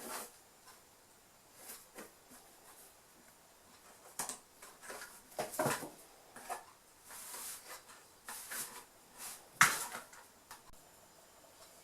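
Kittens scrambling in and over a cardboard box: scratching, rustling, scuffling and knocking of claws and paws on cardboard, with the loudest thump a little before the end.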